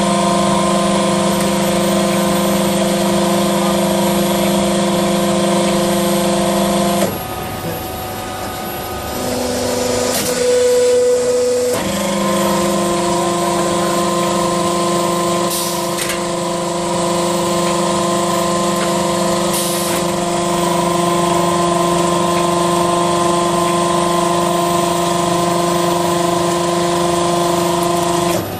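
Charcoal briquette extruder and cutting machine running with a steady electric hum. The hum cuts out for about five seconds roughly a quarter of the way in, then starts again. There are a few brief hisses.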